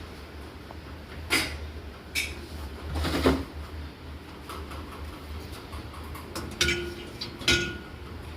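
Five hard clatters and clinks, as of dishes and dishwasher racks being handled, over a steady low hum. The last two clinks ring on briefly.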